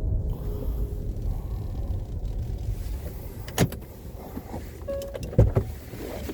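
A vehicle's engine running with a steady low rumble, with a sharp knock about three and a half seconds in and two more close together about five and a half seconds in, the first of that pair the loudest.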